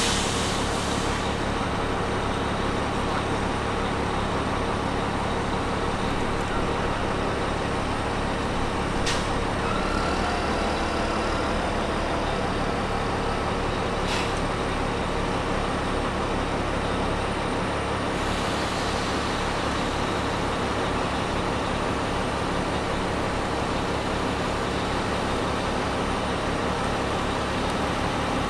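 Diesel engine of a large telescopic-boom container handler running steadily during a lift, with a low rhythmic throb that evens out for several seconds in the middle. Two brief sharp clicks partway through.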